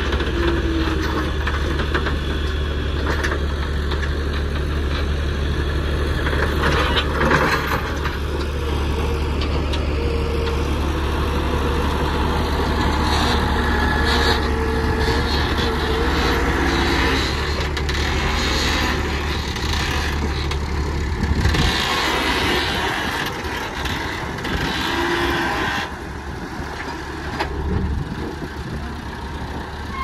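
JCB 3CX backhoe loader's diesel engine running steadily as the machine works and drives its loaded front bucket to the dump truck. Its deep, even drone weakens about two-thirds of the way through.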